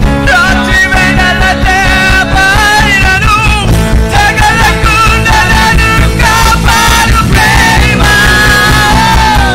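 A worship band performing a Telugu worship song: male voices singing the melody over drum kit, bass guitar and guitars, with a steady beat.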